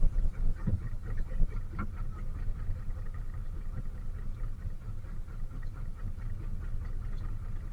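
Fishing boat's engine running steadily at low revs, a constant low rumble with a few faint knocks.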